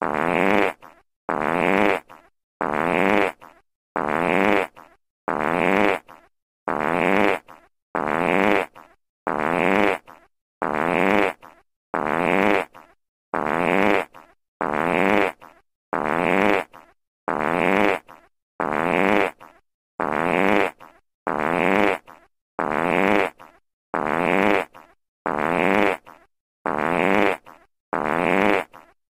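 The same fart sound effect played over and over: each fart lasts about a second and tails off, followed by a short silent gap, repeating evenly about once every 1.3 seconds.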